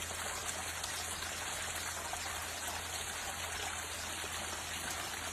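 Water trickling and splashing steadily into a small home pond.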